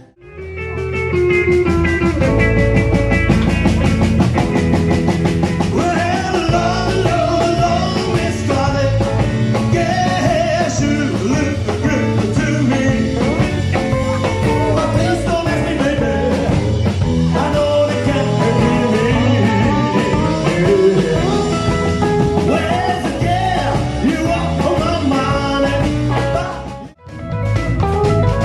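Rock-and-roll music with guitar, blues-flavoured, playing steadily; it breaks off briefly near the end and then resumes.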